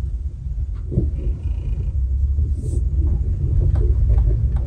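Steady low rumble of a small car's engine and tyres heard from inside the cabin while it drives slowly, with a few faint clicks and a brief faint high tone about a second in.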